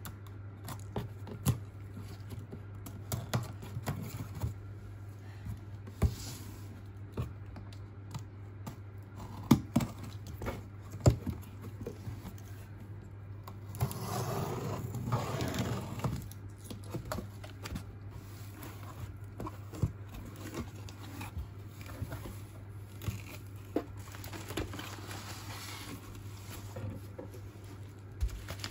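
A utility knife slitting packing tape on a cardboard box: scattered clicks and taps of the blade and cardboard, with a longer scraping, tearing stretch about halfway through as the blade runs along the tape. Later the box is opened and bubble wrap rustles, over a steady low hum.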